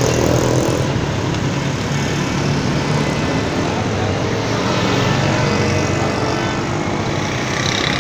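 Steady street traffic noise, with the engines of passing cars and motorcycles running under it.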